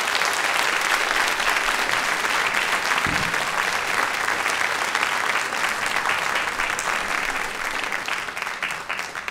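Audience applauding: a steady round of clapping that thins out and fades near the end.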